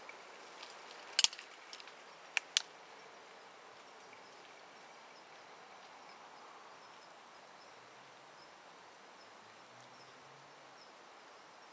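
Three short, sharp clicks, one about a second in and two close together about two and a half seconds in, over a faint steady outdoor hiss.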